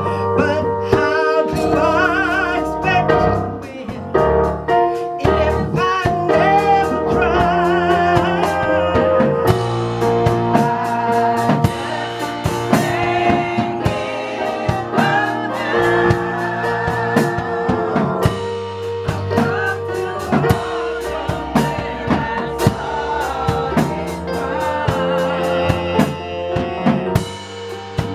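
Gospel choir singing in wavering, vibrato-laden voices over sustained keyboard chords and a drum kit keeping time.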